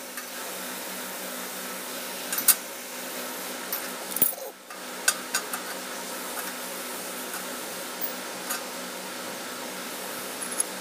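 Steel bars being set down and shifted on a steel plate by hand: a few short metallic clicks and scrapes, scattered through, over a steady background hum.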